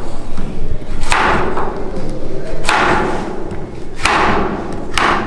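Kitchen knife chopping carrot on a wooden cutting board: several loud thuds about a second apart.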